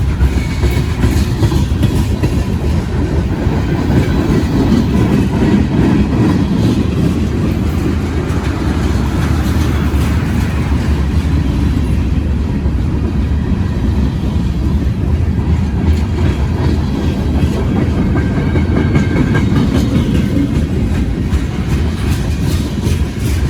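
Freight train cars rolling past, steel wheels rumbling and clattering steadily on the rails.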